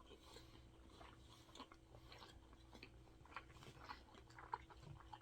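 Faint close-up chewing of a mouthful of fast food, with scattered small wet mouth clicks.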